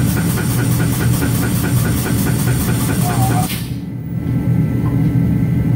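Pit jack's drive running with a steady low hum, joined by a rapid, even clicking of about five strokes a second that stops about three and a half seconds in.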